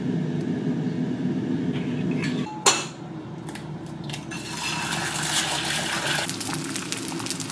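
Kitchen pans being handled at a stove: a steady low hum, one sharp metal clank a little over two and a half seconds in, then light clinks over a hiss.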